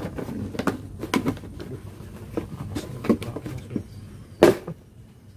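Handling noises from a plastic bait bucket: a run of irregular light knocks and clatters, with one sharp knock about four and a half seconds in.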